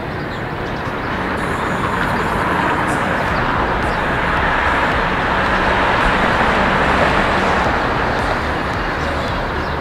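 Road traffic noise: a steady rush that swells over several seconds and eases off a little near the end.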